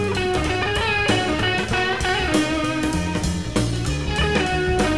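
Instrumental background music led by guitar, with drums keeping a steady beat.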